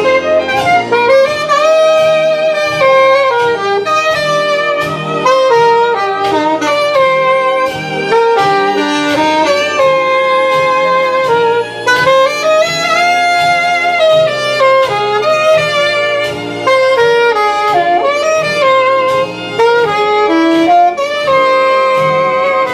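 Instrumental music: a lead melody instrument plays a flowing tune over a steady beat and bass accompaniment.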